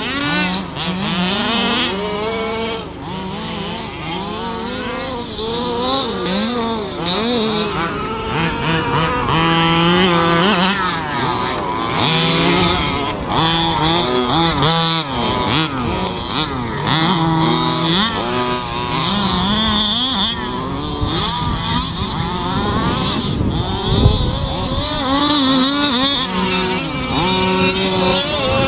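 Several 1/5-scale petrol radio-controlled cars racing, their small two-stroke engines buzzing and revving up and down in overlapping pitches, with one loud thump about three-quarters of the way through.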